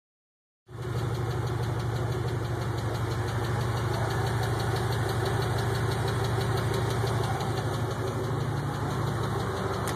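Pontiac Grand Prix GXP's 5.3-litre V8 idling steadily with a fast, even ticking over it, a tick of unknown cause that the owner is asking about.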